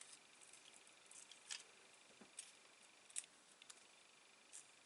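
Near silence: a few faint, short clicks and rustles of paper craft pieces being handled.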